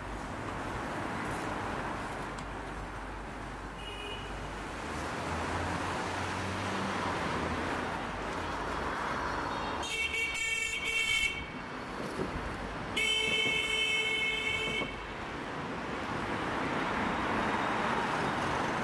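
Steady road traffic noise with a vehicle horn sounding twice: a toot about ten seconds in, then a longer one of about two seconds shortly after.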